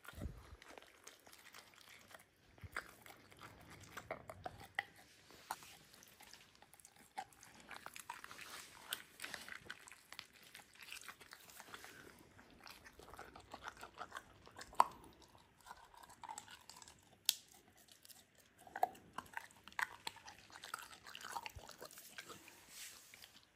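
A pit bull chewing and biting on a toothbrush and fingers while its teeth are brushed: faint, irregular clicks and crunches of teeth on the brush, with a few sharper clicks.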